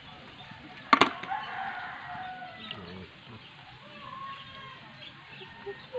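Chickens in the background, with a rooster crowing and hens clucking. A sharp click about a second in is the loudest sound.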